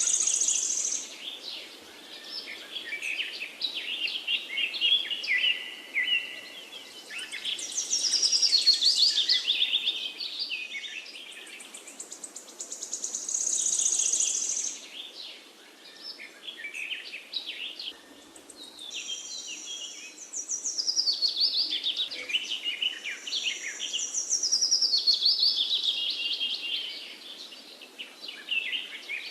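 Wild birds singing: phrases of high chirps and trills that swell every five or six seconds, over a faint steady background hiss.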